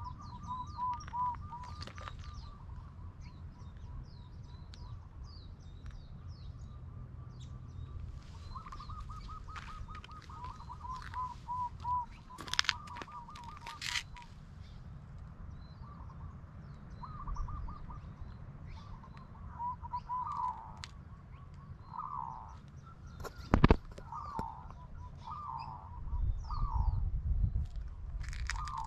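Birds calling: runs of quick, evenly repeated notes, with scattered higher chirps over them. A few sharp clicks cut in, the loudest about two-thirds of the way through, over a steady low rumble.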